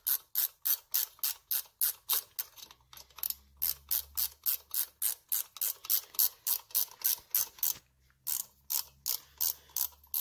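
Hand ratchet wrench clicking in a steady run, about five clicks a second, as screws are run into a motorcycle rocker box, with a short pause about eight seconds in.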